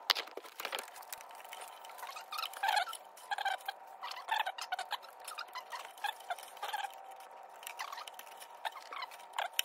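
New rubber timing belt being worked by hand around the crankshaft, idler and camshaft pulleys of a Citroen TU5JP4 1.6 petrol engine: a scatter of light clicks, squeaks and rubbing, over a faint steady hum.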